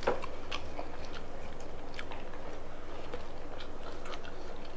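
People chewing food with their mouths close to the microphone, small wet clicks and smacks scattered through.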